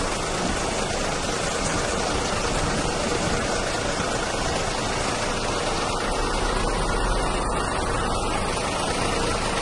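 Mercedes-Benz 3031 truck's diesel engine idling: a steady, even rumble with hiss.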